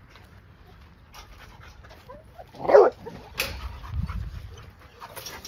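Dog gives one short, loud bark near the middle, followed by a sharp knock and a dull thump as a dog jumps up against the wire-mesh kennel gate.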